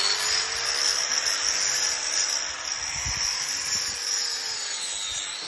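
Angle grinder running steadily while grinding down a cow's overgrown hoof, with a high motor whine over the grinding noise; the pitch dips briefly near the end.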